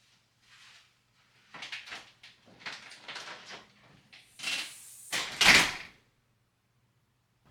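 A run of short knocks and scrapes from household handling, then a sliding whoosh and a louder slide-and-bump about five and a half seconds in, cutting off suddenly just after.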